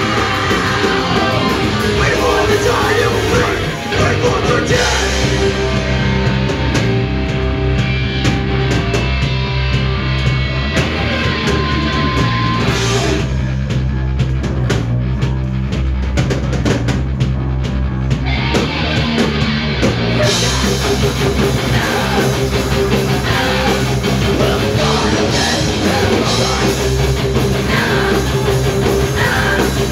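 Live punk rock band playing: electric guitar, bass guitar and drum kit. The cymbals fall away for several seconds in the middle, then the full band comes back in.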